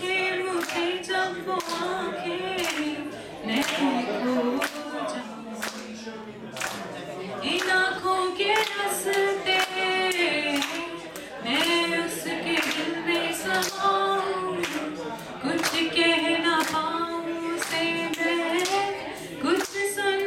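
A woman singing a slow melody into a microphone without instruments, holding long notes, while hands clap a steady beat along with her.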